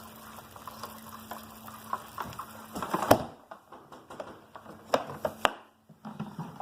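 Fiddler crabs scrabbling in their container: a dense crackle of small scratches and clicks, with a few sharper knocks about three and five seconds in.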